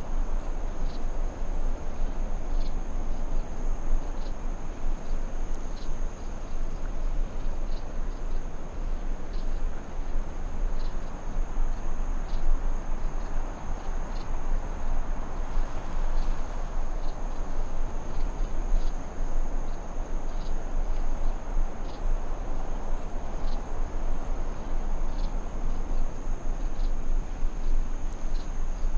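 Steady chorus of crickets chirping, heard as two unbroken high-pitched tones, over a continuous low rumble, with faint ticks coming at a regular beat.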